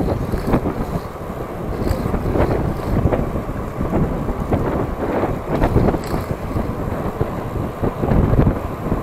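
Wind buffeting the microphone of a camera mounted on a moving road bike, a rough, gusty rumble that rises and falls unevenly.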